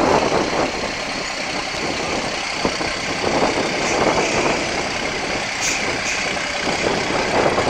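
MAN off-road trial truck's diesel engine running steadily as the truck crawls slowly over a steep dirt mound.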